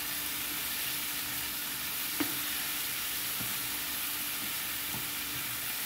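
Beef liver, onion and chopped tomato sizzling steadily in hot oil in a frying pan while a spoon stirs it, with a sharp clack of the spoon against the pan about two seconds in and a few softer knocks. The pan is still sizzling because the fresh tomato has not yet let out its juice.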